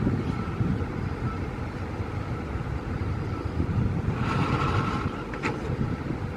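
A vehicle engine running with a steady low rumble, with a brief hiss about four seconds in and a sharp click a little after.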